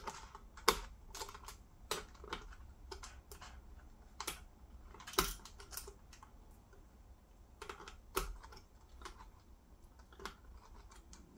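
Scattered small metallic clicks and clinks of the terminal nuts on LiFePO4 cells being broken loose with a hand tool and unscrewed, with a few sharper knocks among them.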